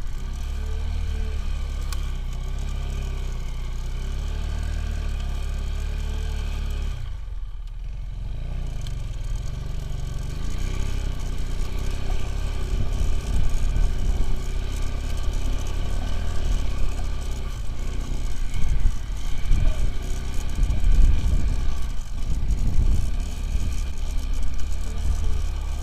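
Motorcycle engine running, steady at first. After a brief break about seven seconds in, it runs louder and more unevenly, with rattling and scraping.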